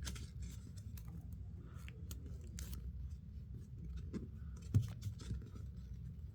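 Sheet of paper being handled as an origami model's flaps are pulled and folded: a run of small crackles and creasing clicks, with one louder knock nearly five seconds in.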